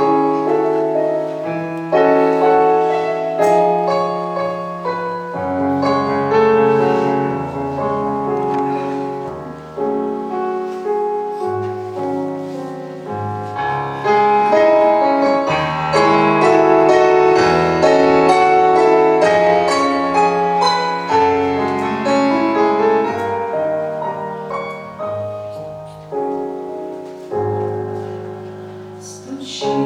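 Piano music: chords and a melody struck every second or two, each note ringing and fading before the next.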